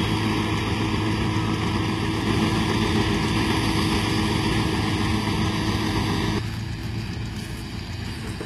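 Massey Ferguson 385 tractor running steadily under load while it drives a straw reaper through wheat stubble, a steady engine hum with a machine whir over it. About six seconds in it drops in level and sounds more distant as the tractor pulls away.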